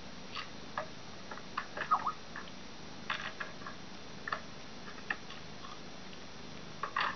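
Eight-day-old kittens suckling at their mother cat, making small irregular wet clicks and smacks. The loudest is a short squeaky smack about two seconds in.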